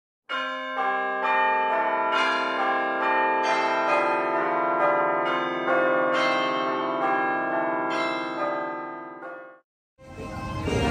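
Several church bells ringing in turn, with a new strike about twice a second and each bell ringing on over the next. The bells fade and stop shortly before the end.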